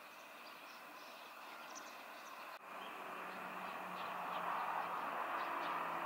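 Outdoor field ambience with scattered short, high chirps of small birds. About two and a half seconds in the sound cuts, and a louder steady rumble of distant vehicle noise with a low hum comes in under the chirps.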